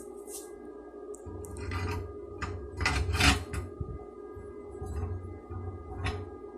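Steady mechanical hum, like a small electric motor running, with several sharp metallic clinks and knocks, the loudest about three seconds in.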